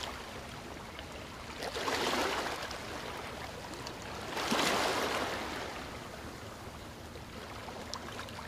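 A steady rushing noise that swells twice, about two seconds in and again about four and a half seconds in.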